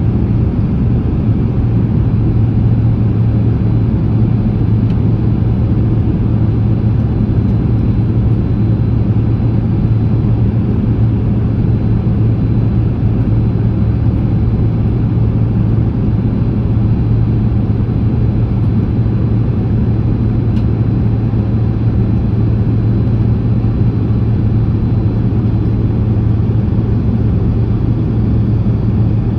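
Steady cabin noise inside a Boeing 767-300ER on final approach: engine and airflow rumble with a strong low hum, unchanging in level.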